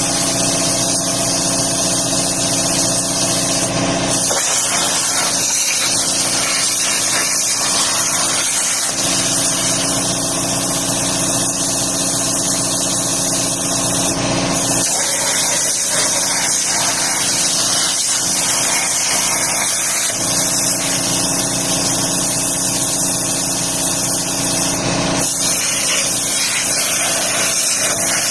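DIY CNC plasma cutter running: a loud, steady hiss over a constant hum. The hiss dips briefly three times, about 4, 14 and 25 seconds in.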